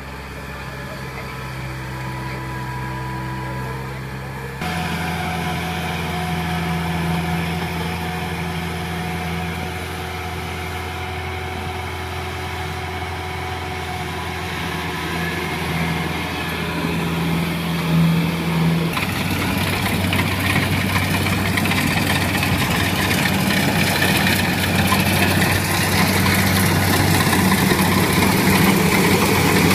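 Kubota tracked rice combine harvester's diesel engine and machinery running steadily, with a low hum; the sound jumps abruptly to a new pitch and loudness twice, about 5 and 19 seconds in, and is loudest and hissiest near the end.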